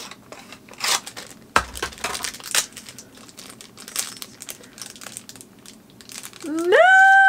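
Small plastic blind bag crinkling and crackling as it is handled and torn open by hand, with one sharper crack about a second and a half in. Near the end a drawn-out vocal "ooh" rises and then falls in pitch, louder than the crinkling.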